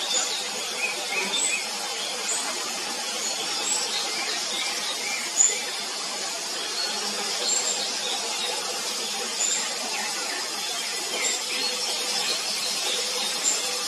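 Scaly thrush (Zoothera dauma) nestlings begging with short, high, thin calls, scattered throughout, over a steady high-pitched background drone.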